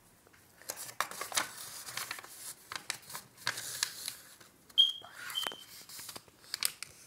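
A sheet of A4 paper rustling and crinkling as it is folded and pressed flat by hand, in a run of short crackles. A little past the middle come two brief high beeps about half a second apart, the first the loudest sound.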